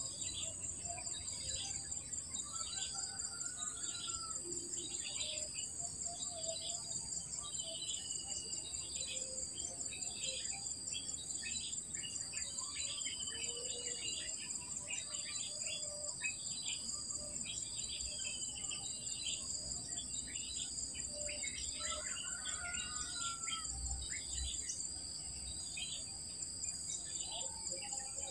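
Insects keep up a steady, high-pitched drone made of two unbroken tones. Many short bird chirps and a few longer whistled bird notes sound over it all the way through.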